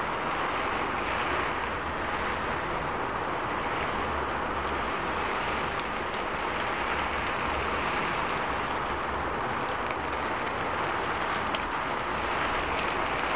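Heavy rain falling on a city street, a steady hiss, with a low rumble of traffic underneath.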